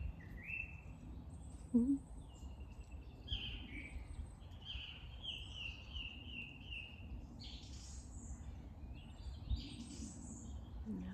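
Several woodland birds singing, with repeated chirping notes and a run of five or six quick notes in the middle, over a low rumble. A brief low thump about two seconds in is the loudest moment.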